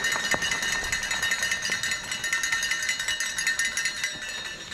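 Spectators' hand-held cowbells shaken without pause, a fast, continuous clanging ring.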